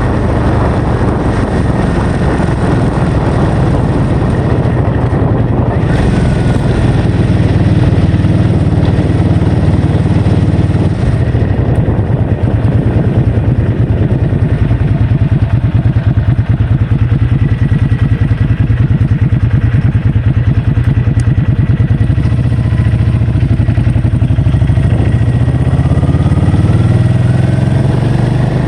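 A vehicle engine running while under way, with a heavy low rumble of wind on the microphone; the engine pitch shifts a little near the end.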